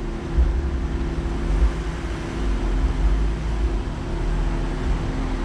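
Steady low hum of an idling car engine, with wind rumbling on the microphone.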